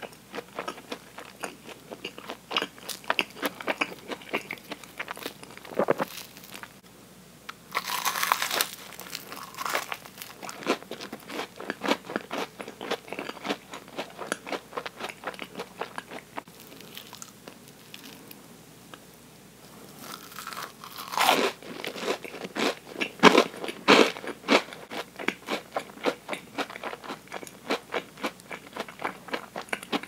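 Close-miked chewing of batter-coated deep-fried Oreos: quick, moist crunching clicks, with louder crunchy bursts about eight seconds in and again around twenty-one to twenty-four seconds in.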